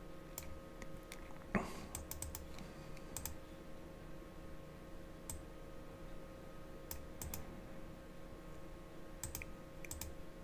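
Scattered clicks of a computer mouse and keyboard, some in quick pairs and clusters, with one louder click about a second and a half in, over a faint steady hum.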